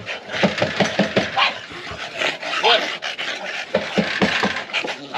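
Dogs panting hard in quick, irregular breaths, with scuffling noises.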